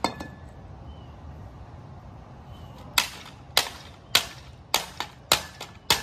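A baseball bat repeatedly smashing the plastic body of an RC car on concrete: six sharp cracking hits about half a second apart, starting about halfway through.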